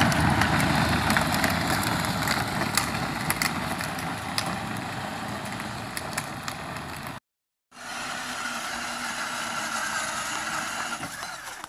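Power Wheels ride-on toy quad driving, with its hard plastic tyres rumbling and clicking over pavement and its 12-volt electric drive running, a steady noise. After a brief gap it carries on more quietly over grass.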